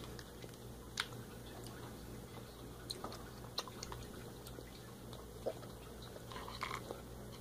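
Faint chewing of chewy candy, with a few soft mouth clicks now and then, over a steady low hum.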